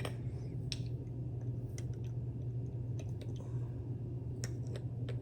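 Scattered light clicks and taps of a spice jar and spoon as dried parsley is measured out, over a steady low hum.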